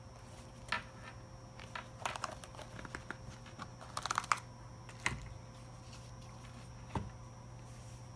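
Hands handling a zippered sunglasses case and the plastic-wrapped microfiber cleaning cloth inside it: scattered light clicks and crinkling of the plastic wrapper. The loudest flurry comes about four seconds in.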